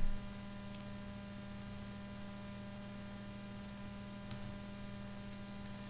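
Steady mains hum, a set of even low tones held without change, over a faint hiss.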